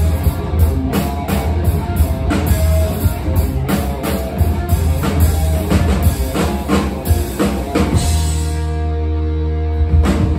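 Live rock band with electric guitar, bass guitar and drum kit playing to a steady drum beat. About eight seconds in, the beat stops and a chord rings out, with one last hit near the end, as the song closes.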